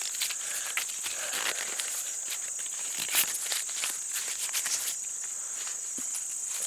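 Dry corn husks rustling and crackling in quick, irregular snaps as ears are handled and peeled, over a steady high-pitched insect drone.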